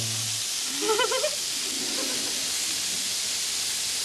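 Onion steak sauce sizzling on a hot pan, a steady, even hiss.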